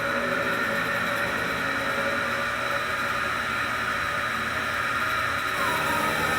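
Hitachi WK-10BH bathroom ventilation fan running with a steady whir and a thin, high squealing whine, the sign of a sticking, under-lubricated motor bearing. A second whining tone comes in near the end, dipping slightly in pitch.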